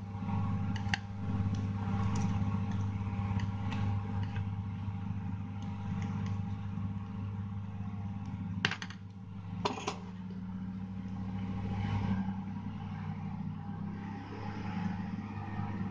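Steady low electrical hum with scattered light clicks and taps as a replacement micro-USB charging connector is pressed and fitted onto a phone's charging board in a metal PCB holder; two sharper clicks come about nine and ten seconds in.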